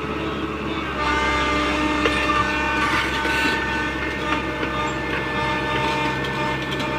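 Tata Hitachi 120H excavator's diesel engine running steadily under working load, with a steady whine over it. It gets a little louder about a second in.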